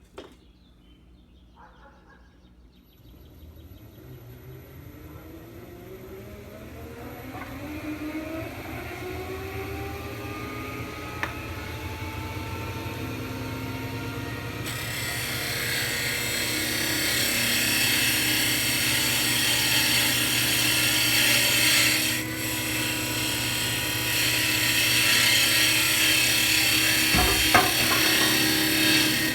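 1936 Boice Crane lathe driven by a DC treadmill motor spinning up slowly, its whine rising in pitch and getting louder over about ten seconds, then running steadily. About halfway through a strong hiss joins the whine, with a low thump near the end.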